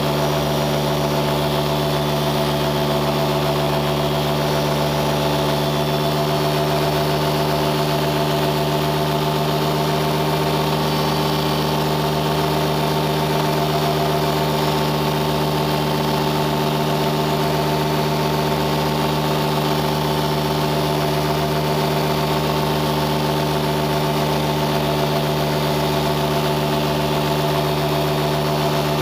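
An engine running at a constant speed: a steady hum that holds the same pitch and loudness throughout.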